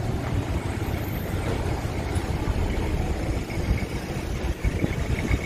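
Steady low rumble of street traffic, with vehicle engines idling and running slowly.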